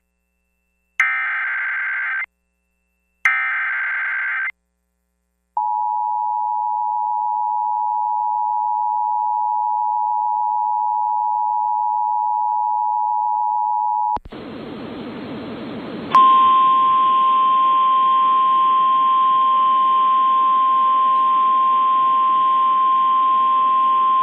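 Emergency Alert System tones: two short bursts of warbling SAME header data, then the EAS two-tone attention signal held steady for about eight and a half seconds. After about two seconds of radio static, the NOAA Weather Radio 1050 Hz warning alarm tone sounds steadily over the static for about nine seconds.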